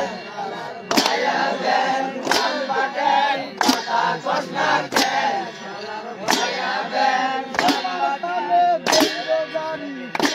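A group singing a boat-race rowing song in unison, kept in time by a metal clang struck about every 1.3 seconds.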